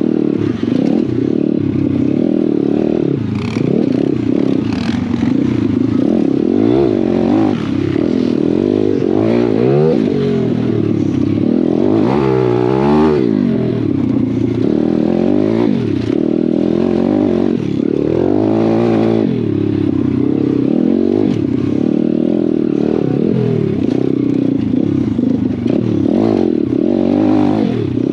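Pit bike engine being ridden hard on a dirt track, revving up and dropping back over and over as the rider opens and closes the throttle.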